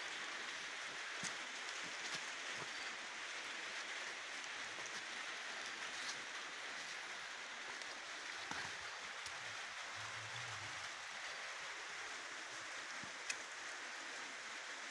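Steady outdoor background hiss, with a few faint clicks.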